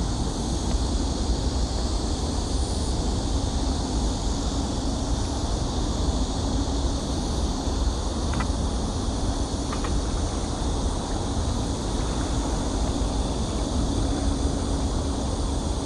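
Steady outdoor background noise: a low rumble and hiss with a faint steady hum, and two faint short chirps about halfway through.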